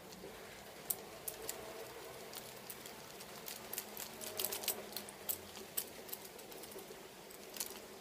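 Hand-cranked 3D-printed plastic scissor lift being raised: faint, irregular clicking and ticking from the plastic crank mechanism as it turns and the arms extend.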